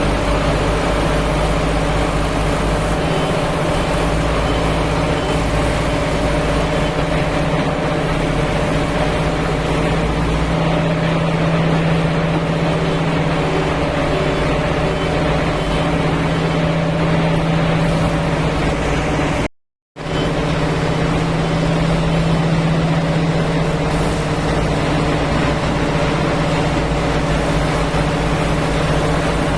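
Diesel engine of a JCB 3DX backhoe loader (Kirloskar engine) running steadily under work, with a strong low hum and small shifts in its lowest notes. The sound cuts out completely for about half a second about two-thirds of the way through.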